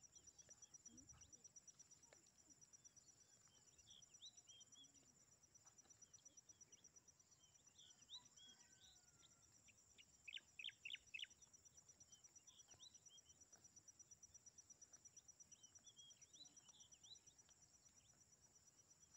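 Faint grassland ambience: a steady, high, rapidly pulsing insect trill with small birds chirping in short clusters of quick notes, the loudest cluster about halfway through.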